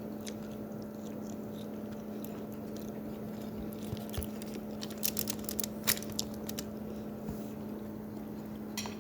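Close-up chewing and biting of food, with a cluster of sharp crunches and clicks about five to six seconds in, over a steady low hum.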